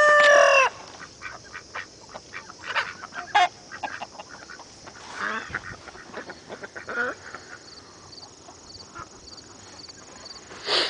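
A rooster's crow ends in the first second, its long held note dropping away. Scattered calls from ducks and chickens follow. In the last few seconds a cricket chirps in an even rhythm.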